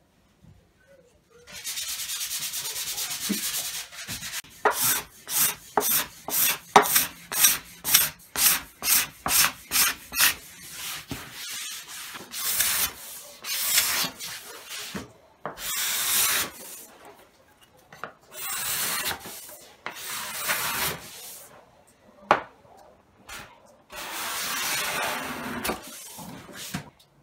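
Steel card scraper pushed across a pine tabletop, shaving the surface. One long stroke, then a run of quick short strokes about two a second, then longer strokes with short pauses between them.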